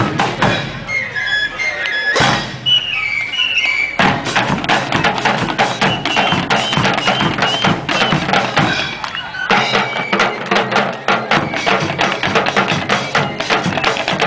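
Traditional Sri Lankan eastern band playing: quick strokes on double-headed drums and a bass drum under a high, nasal reed-pipe melody of held notes that step up and down. The drumming thins out briefly about two seconds in, then comes back dense.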